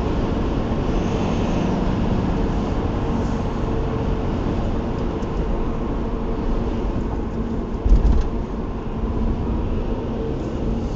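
Subaru engine running hot at a steady speed, with the mechanical noise that the owner puts down to the timing chains. A brief low thump about eight seconds in.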